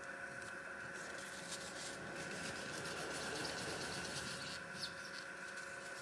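Tissue paper wetted with isopropyl alcohol rubbed back and forth over a graphics card's GPU die, a faint soft scratchy rubbing as dried-out thermal paste is wiped off. A faint steady hum runs underneath.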